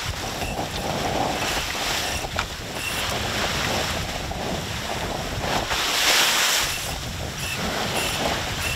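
Wind buffeting the microphone over the rush of water along the hull of a sailboat heeling in a breeze of about 15 to 17 knots, with a louder rush about six seconds in.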